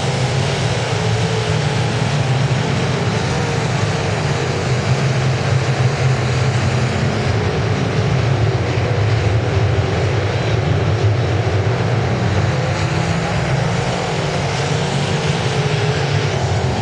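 A field of dirt late model race cars at full race speed, their V8 engines running hard together in a steady, dense drone whose pitch wavers as cars pass and go through the turns.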